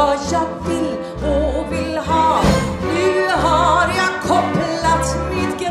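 A woman singing a show tune in Swedish with a live band of brass, saxophones, strings and keyboard, holding some notes with a wide vibrato over a steady bass line.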